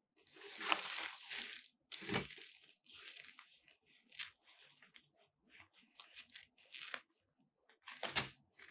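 Fabric honeycomb grid of a softbox and its plastic wrapping rustling and crinkling as they are handled in gloved hands. The rustling comes in irregular bursts, with a louder bump about two seconds in and another near the end.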